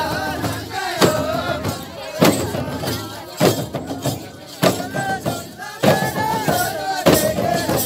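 Nepali kauraha folk music: singing, with a drum struck in a steady beat about once a second.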